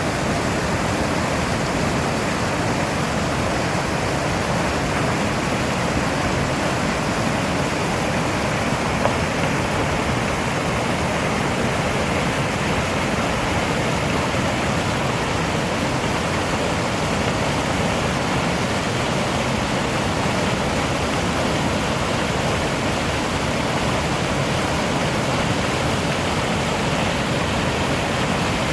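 Rushing water, a steady unbroken rush with no change in level.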